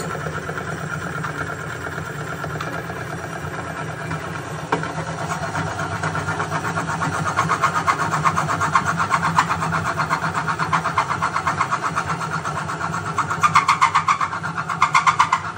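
Bench-top oil friction tester's electric motor running at about 2000 RPM with a steady hum, under a fast rhythmic metal-on-metal grinding from the test bearing against the spinning wheel. The grinding grows louder from about five seconds in and is loudest near the end, as load is put on the lever arm.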